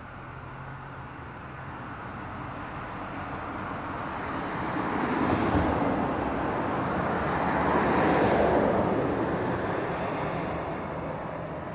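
Passing street traffic: a rushing noise that swells over several seconds, peaks in the middle and fades again.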